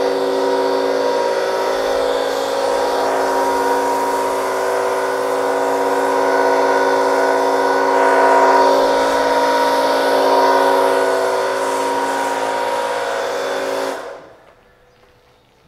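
Pressure washer running steadily, a motor hum with several fixed tones over the hiss of the water jet spraying a foam-covered car. It cuts off abruptly near the end.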